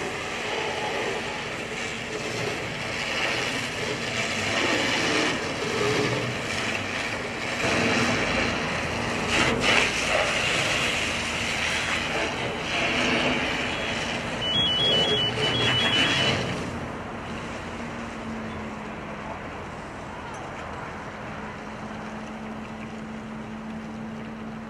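Fire hose stream spraying hard onto a burning garbage truck, a loud rushing hiss, with a short run of electronic beeps about two-thirds of the way in. The spray cuts off soon after, leaving a steady engine hum.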